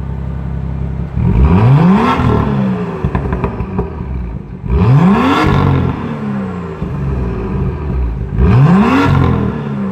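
2017 BMW M2's turbocharged 3.0-litre straight-six, stationary in neutral, revved three times through its quad exhaust, each rev climbing quickly and dropping back to idle. The car idles between the blips, inside a concrete parking garage.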